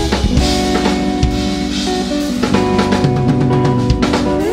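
Live instrumental rock-fusion trio of drum kit, electric bass and electric guitar playing an odd-meter groove: busy drumming with kick, snare and cymbals under held guitar notes. Right at the end a guitar note bends upward.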